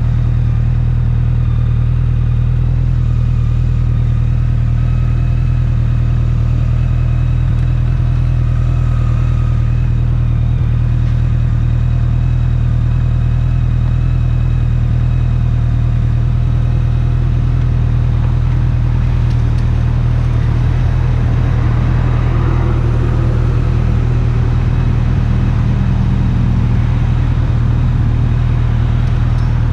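BMW K-series 'flying brick' motorcycle engine running at a steady, unchanging pitch.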